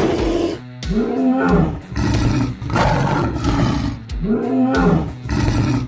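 Dinosaur roar sound effects: a series of loud roars, each about a second long, rising then falling in pitch.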